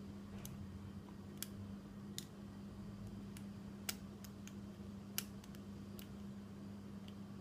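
Faint, irregular metallic clicks of a lock pick and tension wrench working the pin stack of a Yale euro cylinder lock during single-pin picking, about a dozen scattered ticks over a steady low hum.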